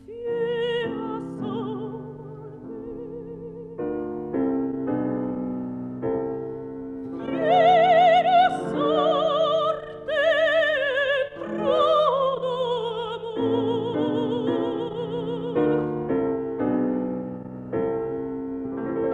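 A mezzo-soprano sings an Italian aria with a marked vibrato, accompanied by piano. The voice is loudest in the middle, on long sustained high notes, then settles into a long held note before the piano's steady chords carry on.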